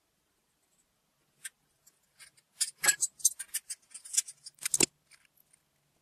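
Small metallic clicks and taps of a screwdriver and M3 nuts against a thin sheet-metal air duct as the heater cable ends are fastened. The taps come in an irregular run starting about a second and a half in, with the loudest knocks around three seconds and again near five seconds.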